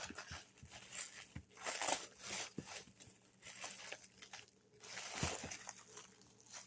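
Plastic packaging crinkling and rustling in short bursts as it is handled.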